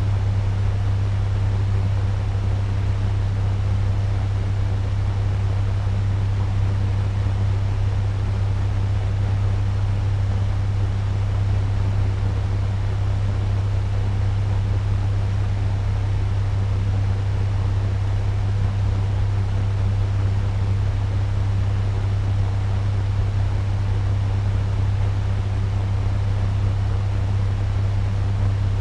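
Turbo fan running steadily at medium speed: a constant low hum under an even rush of air.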